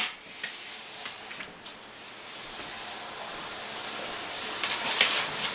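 Light clicks and taps of petri dishes being handled on a table over a steady faint hiss, with a few brighter clicks near the end as a dish is set down or closed.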